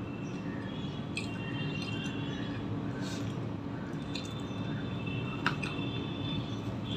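Close-up wet chewing and mouth sounds of someone eating paratha with egg curry, with a few sharp clicks while fingers tear the paratha. A steady low hum runs underneath.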